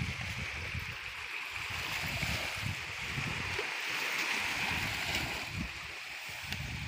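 Small waves washing onto a sandy beach, a steady hiss, with gusts of wind rumbling on the microphone.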